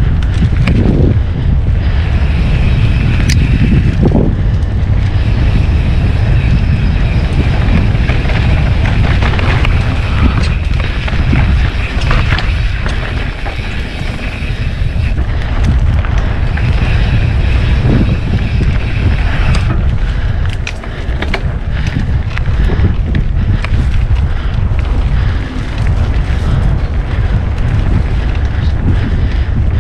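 Mountain bike ridden down a dirt singletrack: heavy wind buffeting on the camera microphone with tyre noise on dirt and many scattered knocks and rattles from the bike over bumps, easing briefly twice in the second half.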